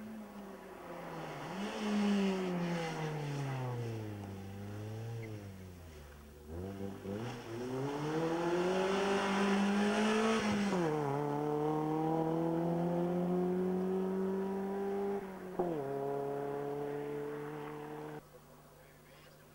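Rally car engine at full stage pace as the car passes. The revs fall under braking, then climb hard through the gears with sharp drops in pitch at each upshift. The sound cuts off abruptly near the end.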